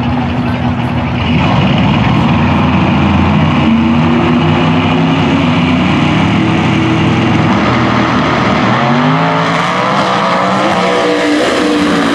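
Two drag cars' engines, one of them a turbocharged 1971 Pontiac, running steadily at the starting line, then launching about eight and a half seconds in, their engine notes climbing in pitch as they accelerate down the track.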